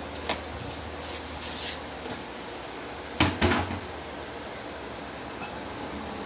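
Handling noise while working at the base of a refrigerator: soft rubbing and a few light clicks, then two sharp knocks about a quarter second apart around three seconds in, over a steady low hum.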